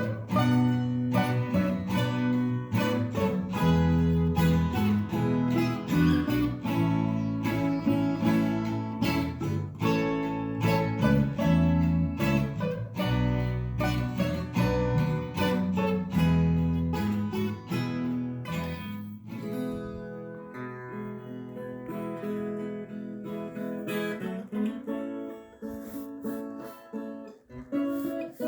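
Background music: strummed and plucked acoustic guitar, with a bass line that drops out about two-thirds of the way through, leaving the guitar playing more sparsely.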